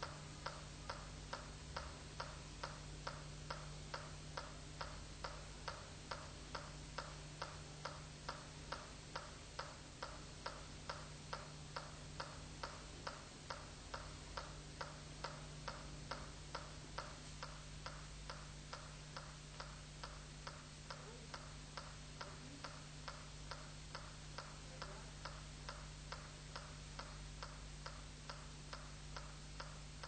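Metronome ticking evenly at about two beats a second, keeping the tempo for the dance, over a low steady hum.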